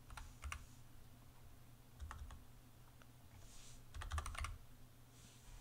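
Computer keyboard typing in three short bursts of quick key clicks, the busiest about four seconds in, over a faint steady low hum.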